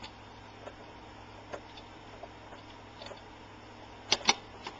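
Small scattered clicks and ticks of fingernails prying at the thin metal frame along the edge of an LCD panel, with two sharper clicks close together near the end.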